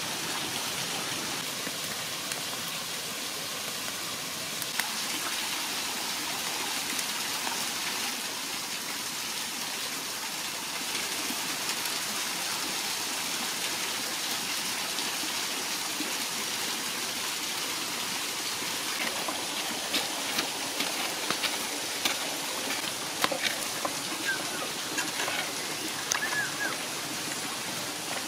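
Wood cooking fire hissing steadily and crackling, with sharp pops coming more often in the second half.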